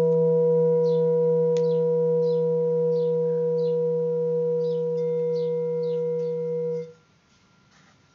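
A handmade seven-metal Himalayan singing bowl, struck as one note in a La-to-Sol sequence, ringing out with a steady low hum and several higher overtones, then cut off suddenly about seven seconds in. Short high chirps repeat faintly in the background.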